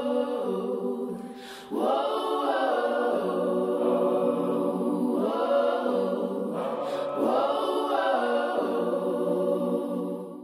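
Choral vocal music: sustained, layered voices holding chords, swelling up twice and fading out at the very end.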